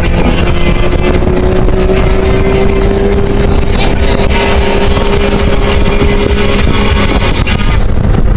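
Toyota Camry Solara engine heard from inside the cabin at track speed, a loud steady drone whose pitch rises slowly as it pulls through a long corner, over road and wind noise.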